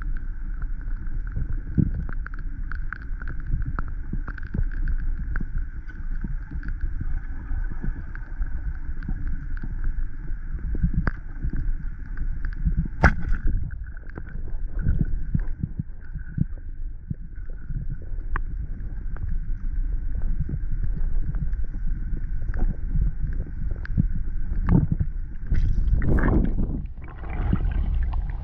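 Underwater sound heard through an action camera's waterproof housing in murky river water: a low rumble with scattered clicks and knocks and a faint steady hum. A louder rush of noise comes near the end.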